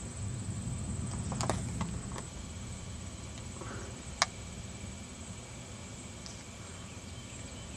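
Faint outdoor background with a low, even rumble, a few light clicks, and one sharper click about four seconds in.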